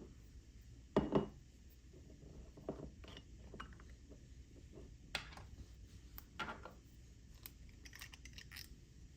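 Small hard objects clinking and knocking on a desktop: a string of separate clicks and taps, the loudest a quick double knock about a second in.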